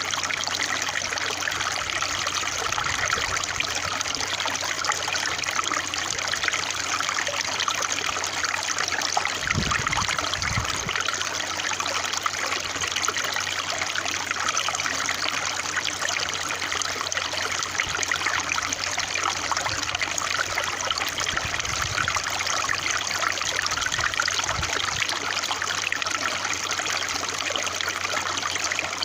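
Water trickling and running steadily, with a few soft low bumps about ten seconds in and again near the end.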